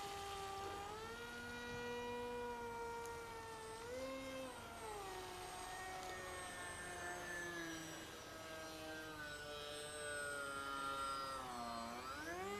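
Electric motor and APC 6x4 pusher propeller of a Bixler RC plane whining in flight. The pitch steps up and down as the throttle changes, then dips and climbs sharply near the end.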